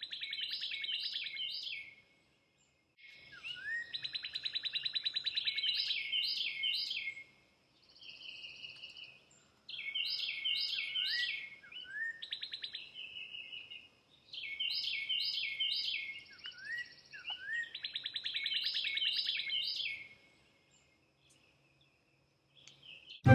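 A songbird singing phrase after phrase of quick repeated chirps and short trills, with pauses of about a second between phrases. The sound drops out completely twice.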